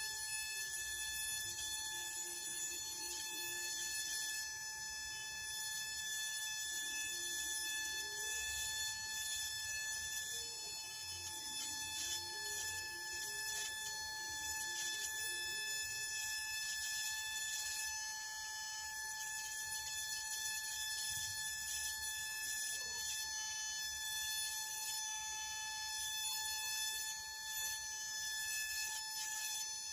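Steady high-pitched whine of a small electric motor running at constant speed, with scattered faint clicks.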